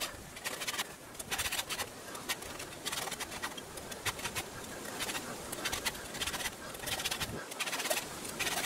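A file in a filing guide rasping across the cutters of a chainsaw chain in short, repeated strokes, sharpening the chain by hand tooth by tooth.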